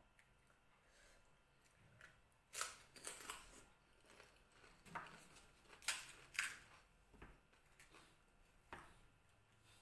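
Crisp fuchka (pani puri) shells crunching and cracking as they are chewed, a few sharp crunches in two clusters, the loudest about two and a half and six seconds in.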